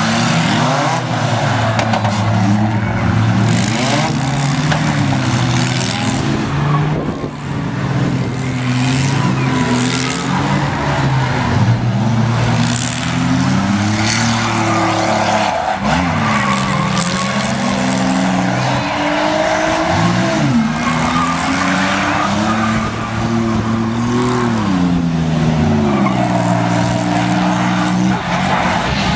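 Demolition derby cars' engines revving up and down hard, with tyres spinning on the pavement and now and then a crash of car bodies slamming into each other.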